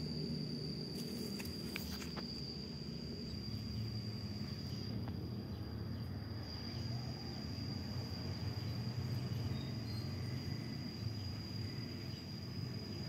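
A steady, high-pitched insect trill, unbroken throughout, over a low rumbling noise, with a few faint clicks one to two seconds in.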